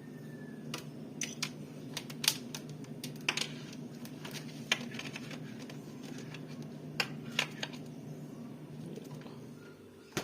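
Scattered light clicks and taps from handling a thermometer and its probe while setting it in the fridge's freezer, over a steady low hum that fades near the end.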